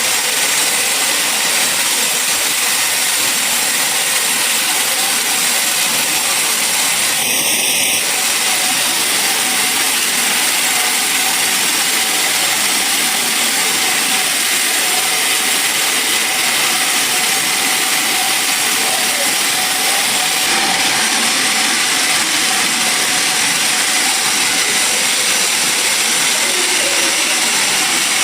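Sawmill machinery running steadily: a loud, even noise with a faint steady whine under it.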